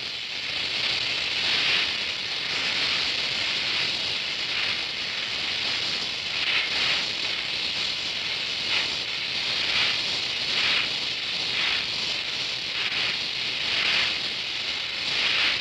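Oxy-acetylene welding torch flame hissing steadily as it welds thick plate, with an uneven crackle that swells about once a second as filler rod melts into the puddle.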